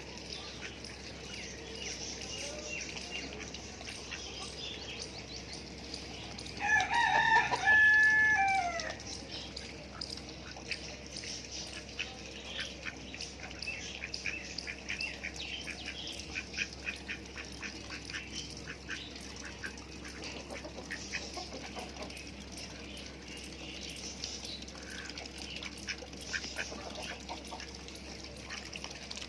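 A rooster crows once about seven seconds in, a pitched call of about two seconds that rises, holds and then falls away, the loudest sound here. Softer short clucks and calls from the poultry come before and after it.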